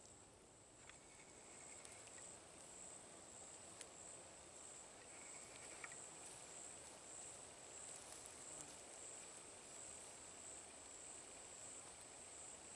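Faint, steady high-pitched chirring of night insects such as crickets, with a few faint short clicks scattered through it.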